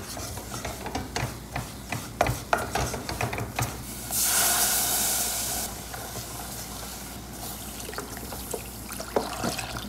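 A wooden spoon scraping and tapping a thick roux of flour and margarine in a metal saucepan. About four seconds in, milk poured from a carton hits the hot roux with a loud hiss for a second or two, then the pouring and stirring go on more quietly.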